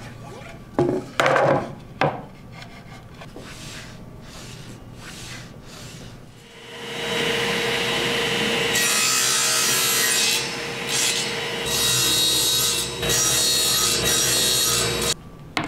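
A few knocks of plywood being set on the saw table, then a table saw starts up about six seconds in and runs with a steady hum. From about nine seconds it is cutting plywood, the cutting noise dipping and returning a few times as the board is fed, until it cuts off abruptly near the end.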